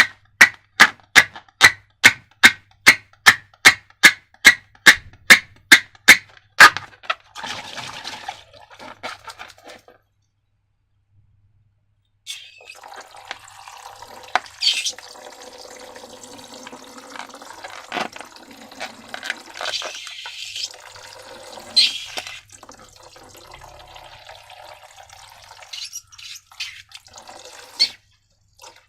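A run of about twenty sharp taps, evenly spaced at about three a second. After a short pause comes wet, sticky slime squishing and dripping, with occasional clicks.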